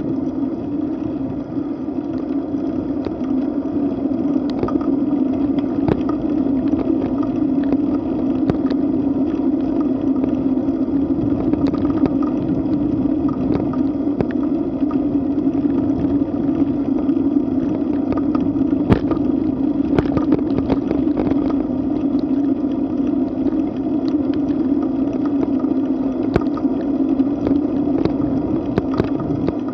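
Steady wind and road noise on a bicycle-mounted camera while riding at about 10 to 14 mph on asphalt, with scattered sharp clicks and rattles from the bike and mount over bumps, a cluster of them about two-thirds of the way through.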